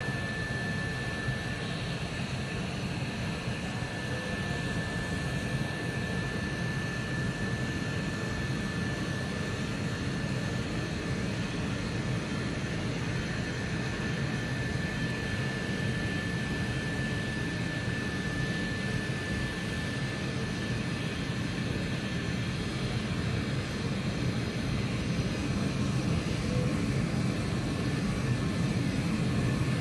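Laser engraving machine running while it engraves glass: a steady rushing noise with a low rumble and a constant high whine, growing slightly louder near the end.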